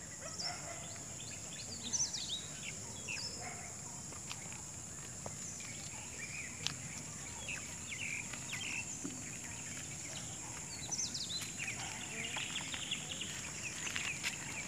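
Birds chirping and calling in scattered short calls, over a steady high-pitched hiss.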